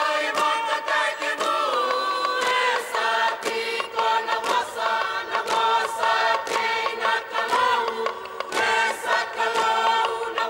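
A group choir singing a Fijian Alleluia chant in harmony, with sharp hand claps marking a beat throughout.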